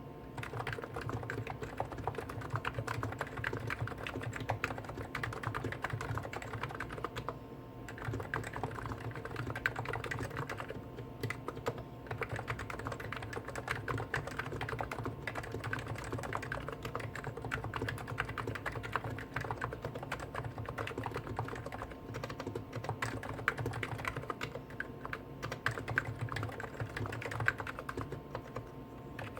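Two Hansung electrostatic capacitive (Topre-style) keyboards, a GTune CHF4 Snow White with 50 g switches and a GTune CHF7 OfficeMaster with 55 g switches, typed on at the same time: a dense, continuous stream of keystrokes. A faint steady hum lies underneath.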